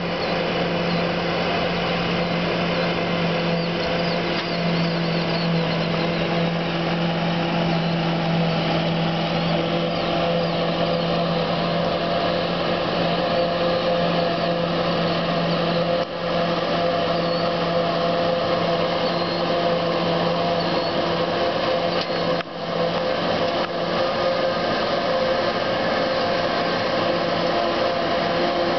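McCormick 140 tractor pulling a New Holland 790 forage harvester, chopping barley: a steady engine drone with the harvester's whine, held at one pitch, with two brief dips in level past the halfway point.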